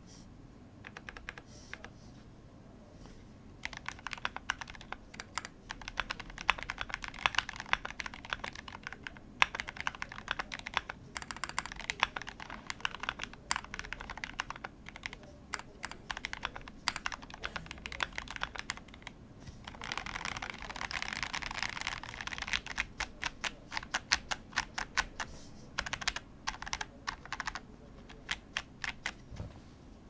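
Typing on a 60% mechanical keyboard built with vintage Cherry MX Black linear switches and tall sculpted MT3 keycaps: a steady stream of key presses. It starts sparse for the first few seconds, then runs as continuous typing, with a faster, denser run a little past the middle.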